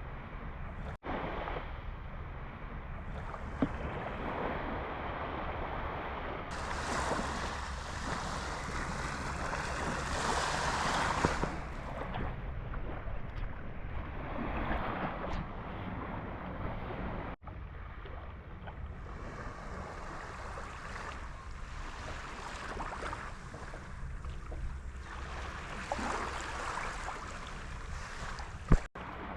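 Sea waves washing onto the shore, swelling and ebbing, with wind buffeting the microphone. There are short breaks where the sound cuts out abruptly, about a second in, midway, and near the end.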